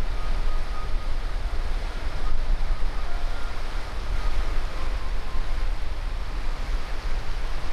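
Small sea waves washing onto a sandy beach, an even hiss of surf, with wind buffeting the microphone as a low rumble underneath.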